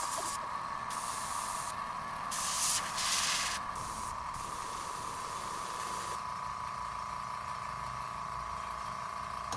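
Airbrush spraying paint: a steady hiss of air, with louder bursts of spray that start and stop several times in the first half, then a steadier, fainter spray.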